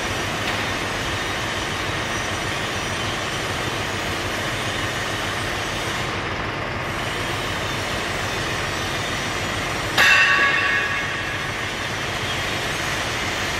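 Mahindra Arjun tractor's engine running steadily while its mounted hydraulic log crane is slewed around, a continuous even mechanical rumble. About ten seconds in, a single sharp metal clang rings out and fades within about a second.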